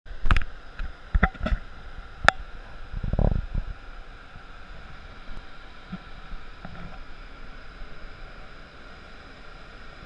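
Steady cockpit noise of a Boeing 737 in flight: an even rush of air with a faint hum. Several sharp clicks and knocks come in the first two seconds or so, and a short low rumble follows about three seconds in.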